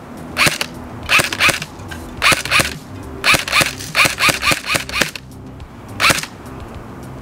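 Tokyo Marui MP5SD6 airsoft electric gun (AEG) firing BBs in short bursts of a few shots each, the longest burst about four seconds in and a single shot about six seconds in. It is run on a LiPo battery, which gives a quick trigger response, and has a plastic suppressor fitted.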